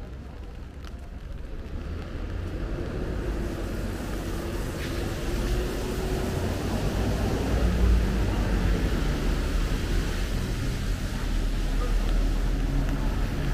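Road traffic growing steadily louder, a low rumble with the hum of a vehicle engine shifting in pitch, over the even hiss of rain.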